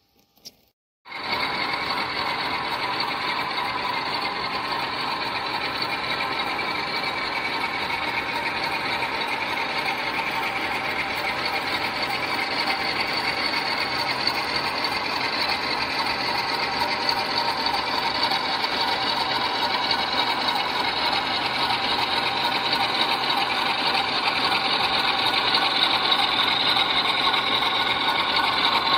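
OO gauge model train running on the layout: a steady mechanical whirring of motor, gears and wheels on the track, starting about a second in and slowly growing louder.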